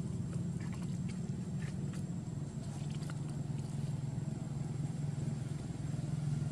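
Steady low hum of an engine running, with a few faint clicks in the first half.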